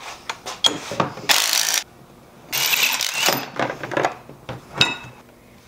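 Hand tools working on metal parts: two runs of rapid clicking and scraping, about a second and a half in and again around three seconds, with scattered sharp knocks and clinks between.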